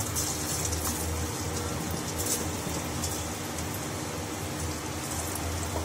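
Batter-coated cauliflower pieces deep-frying in hot oil in a steel kadai: a steady sizzle with light crackling as more pieces are dropped in.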